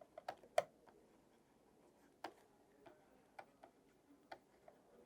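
Faint, irregularly spaced small clicks and ticks over low room hiss. There are about seven in all, the loudest about half a second in.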